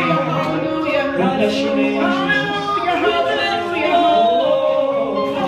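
Church praise team of several singers singing a worship song into microphones, with long held notes sliding between pitches.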